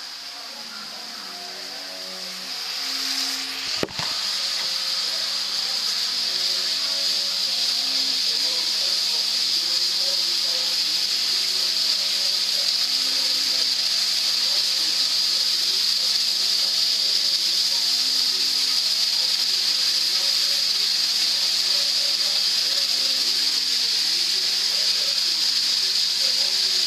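Diced meat sizzling in a hot frying pan. The sizzle swells as the food goes in, there is a knock about four seconds in, and then it holds as a steady high hiss while the food is stirred.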